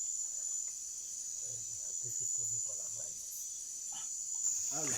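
Steady, high-pitched chorus of night insects, unbroken throughout, with faint distant voices murmuring underneath.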